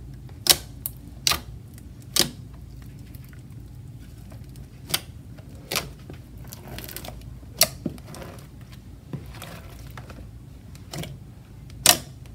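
Hands pressing and pulling a large tub of thick slime, some of it studded with foam beads, giving about a dozen sharp, irregular pops and clicks.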